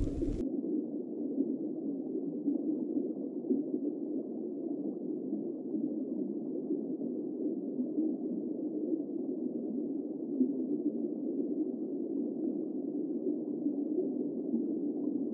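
Steady, muffled underwater-style rush of noise with no highs and no deep bass, starting abruptly as the speech cuts off about half a second in.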